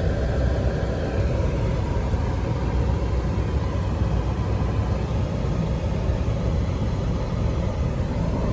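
A 2004 Chevrolet Impala LS backing up at low speed: a steady engine and road rumble.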